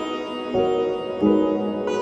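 Background instrumental music: a plucked string instrument with sustained ringing notes, a new note struck twice.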